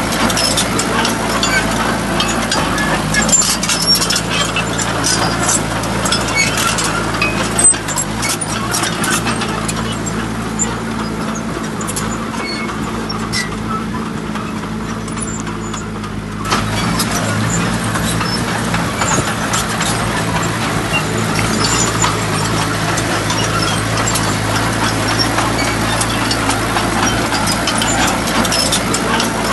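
Dump truck's engine running steadily, with scattered clicks and knocks over it; the noise steps up in level about sixteen seconds in.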